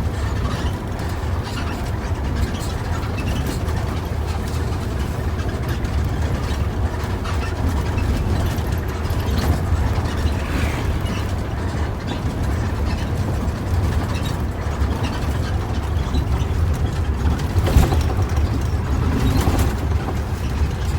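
Bus cabin noise on the move: a steady low drone of engine and road, with scattered clicks and rattles from the cabin.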